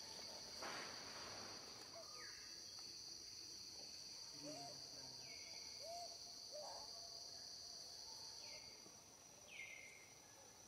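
Faint, steady high-pitched insect buzz, with a few short falling chirps over it; the buzz fades out about nine seconds in.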